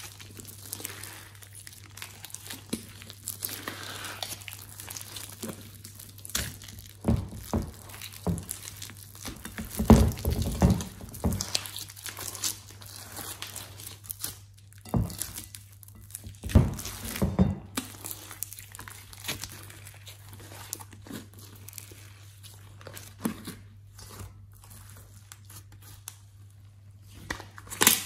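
Hands squeezing and kneading a large lump of thick, glossy slime: sticky crackling and clicking as it stretches and folds, with several louder wet squelches now and then.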